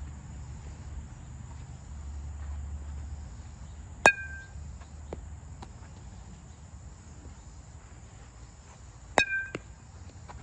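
A baseball smacking into a leather baseball glove twice, about five seconds apart, each a sharp crack with a short ringing tail. Under it, a steady drone of insects.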